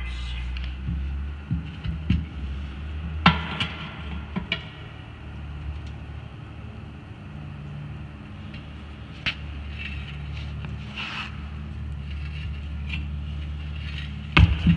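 Steel tire irons clinking and scraping against a semi-truck tire and its steel rim as the bead is levered on, with a few sharp knocks, the loudest cluster just before the end. A steady low hum runs underneath.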